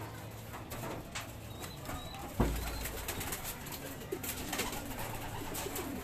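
Racing pigeons cooing in a wooden loft, low, repeated coos, with scattered clicks and a single loud thump about two and a half seconds in.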